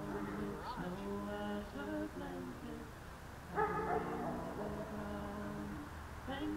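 Music: a slow melody of long held notes moving in steps, becoming fuller and louder about three and a half seconds in.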